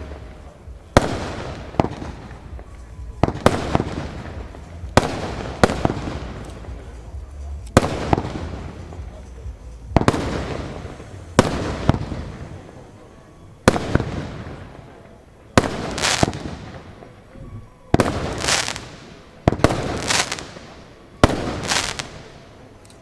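Zodiac firework going off shot after shot: about twenty sharp bangs, some about a second apart and some in quick pairs, each trailing off in a high fading hiss.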